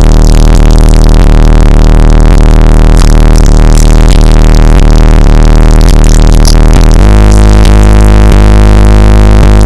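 Bass-heavy electronic music played very loud through a car stereo's two Sound Solutions Audio ZCON 18-inch subwoofers, powered by four Sundown SAZ-1500 amplifiers, heard inside the car's cabin. The deep bass line shifts to a different, fuller note about seven seconds in.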